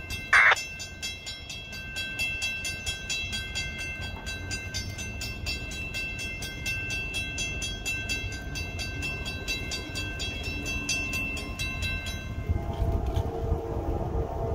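Railroad grade-crossing warning bell ringing rapidly and steadily while the crossing gates come down, with one short, loud, high-pitched sound about half a second in. The bell stops about twelve seconds in, and a locomotive horn starts sounding near the end.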